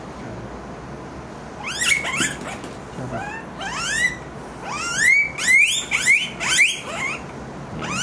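Guinea pig squealing: a run of short, high calls, each rising sharply in pitch. They start about two seconds in and come faster and louder in the second half, about three a second. These are distress squeals from an animal whose uncleaned ears are very painful.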